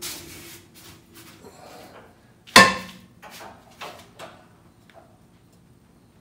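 A breaker bar on a 22 mm rear subframe bolt: one sharp metallic crack with a short ring about two and a half seconds in as the bolt breaks loose, followed by a few lighter clicks and knocks of the bar and socket.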